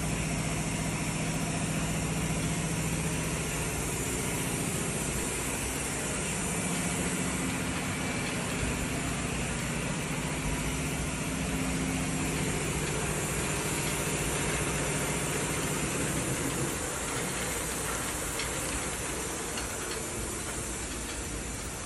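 Dorner adjustable incline belt conveyor with a plastic modular belt running: a steady low motor hum and belt rattle under a continuous hiss. The low hum eases off about three-quarters of the way through.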